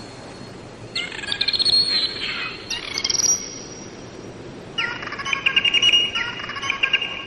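Bottlenose dolphins chattering. Steady whistles are mixed with rapid buzzing pulse trains, in four bouts of about a second each with short pauses between.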